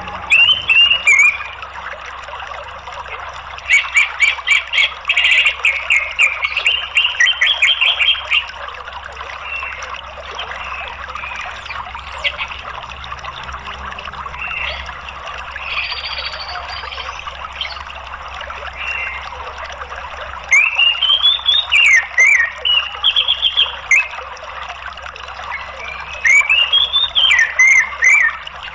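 Orange-headed thrush singing in four loud bursts of rapid chattering notes and rising and falling whistles, the longest about four seconds in, with quieter gaps between. A steady sound of running water lies underneath.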